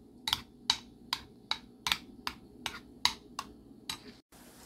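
Metal spoon clicking against the side of a bowl while stirring thick banana-and-flour batter, a regular run of sharp clicks about two or three a second that stops near the end.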